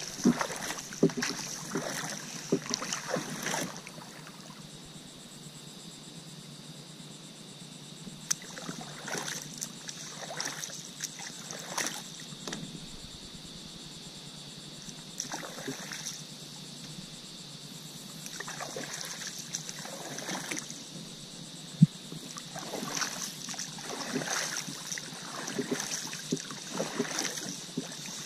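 Hands paddling water: a person lying on a paddleboard strokes with both arms, splashing in spells of strokes with quieter pauses between. There is one sharp knock about three-quarters of the way through.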